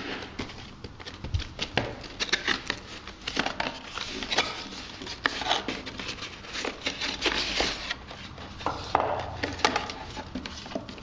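Cardboard box and paper insert being handled and opened by hand: irregular rustling, scraping and soft taps as the flaps are pulled open.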